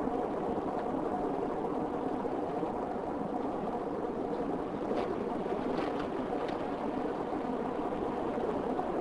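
Car driving, with steady engine and road noise heard from inside the car. A few faint clicks come about five to six seconds in.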